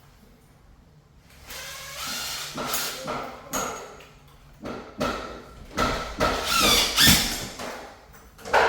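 Irregular metallic clattering and scraping as a ceiling fan mounting bracket and its hardware are handled and fitted at the ceiling box, starting about a second and a half in, with brief ringing tones among the knocks.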